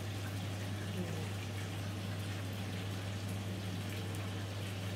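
Steady low hum over an even hiss of room noise, with no distinct event.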